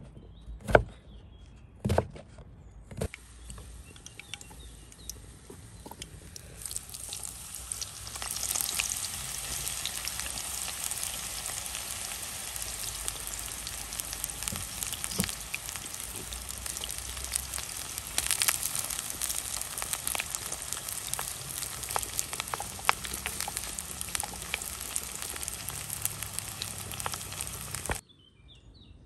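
Food frying in hot oil in a pan, a dense steady sizzle with crackles that swells about seven seconds in and then cuts off abruptly near the end. A few sharp knocks come first, in the opening three seconds.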